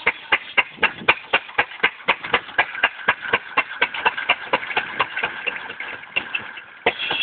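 6 HP Fairbanks Morse hit-and-miss engine running on a buzz-saw rig, sharp even clicks about four a second over a steady higher tone. Near the end a louder, noisier sound comes in over it.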